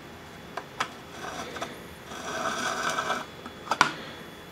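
The metal fuel tray of a Wilesco D14 toy steam engine being pushed by its rod into the firebox: a few light clicks, about a second of metal scraping as it slides, then a sharp metallic clack near the end.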